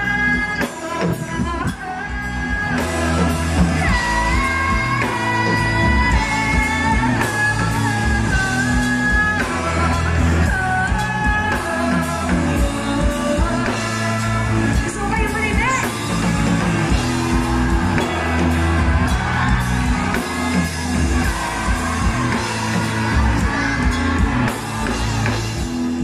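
Live pop-rock band playing, a female lead vocal singing held, sliding melody notes over bass guitar and a steady drum beat.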